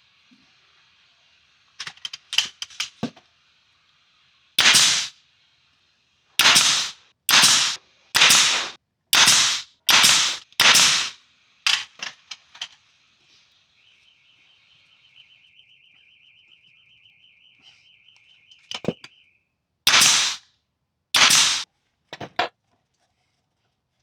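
Compressed-air trimming tool let off in about a dozen short, loud bursts, mostly about a second apart with a pause in the middle, among a few quieter clicks. A faint rapid buzzing tone runs through the pause.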